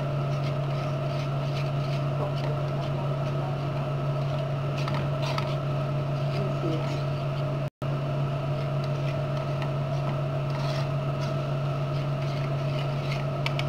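A utensil stirring and scraping egg-coated spaghetti in a stainless steel frying pan: faint, scattered scrapes over a steady low hum. The sound cuts out for an instant a little past halfway.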